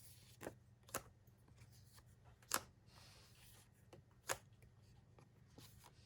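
Cut-out postcard pieces being handled and laid down: faint paper rustling with four sharp taps, over a low steady hum.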